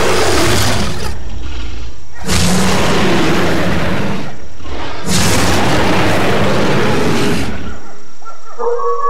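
Three long, loud monster roars in a row, rough and noisy rather than pitched, the second and third each lasting two to three seconds.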